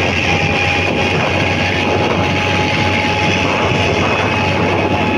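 Farm tractor engine running steadily, heard up close from a rider on the moving tractor.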